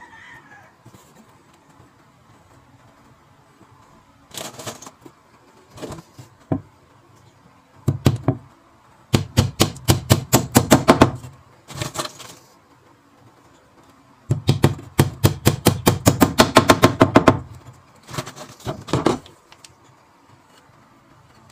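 Hammer nailing a wooden strip into a cabinet frame: two runs of fast, light strikes, about nine a second, with a few single knocks before, between and after them.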